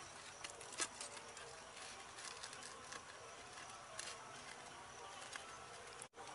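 Faint rural night ambience of insects droning steadily, with a few light clicks and taps, the sharpest about a second in. The sound cuts out briefly near the end.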